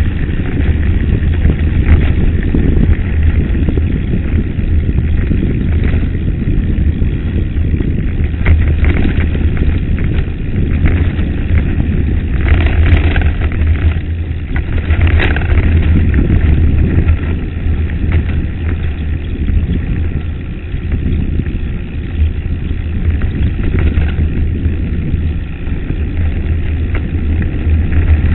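Wind buffeting the microphone of a camera riding on a mountain bike, a steady low rumble mixed with the rattle of tyres rolling over a loose gravel dirt road. Two brief sharper noises come about halfway through.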